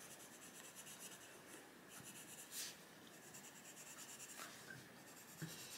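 Coloured pencil shading on paper: faint, steady scratching of the pencil lead across the page, with one brief louder scratch about two and a half seconds in.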